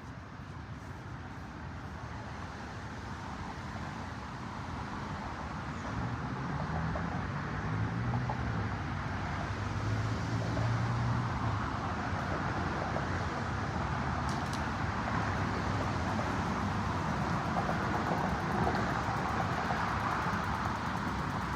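Road traffic noise slowly growing louder, with a motor vehicle's engine hum passing through from about six to twelve seconds in.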